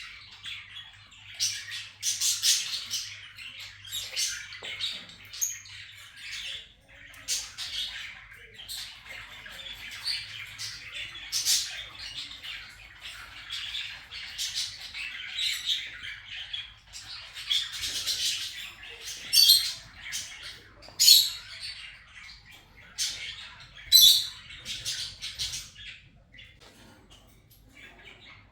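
Kakariki parakeets chattering and squawking without a break, with a few louder, sharp squawks in the second half.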